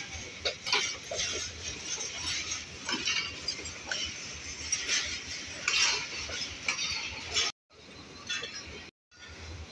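Passenger train coaches rolling slowly past, with repeated sharp metallic clinks and short squeals from the wheels on the rails over a low rumble. The sound cuts out briefly twice near the end.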